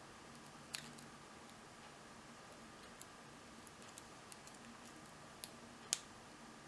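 Irregular, faint metallic clicks and ticks of a lock pick working the pins of a 16-pin Papaiz cruciform padlock during single pin picking, with a sharper click just before one second and the loudest click near the end.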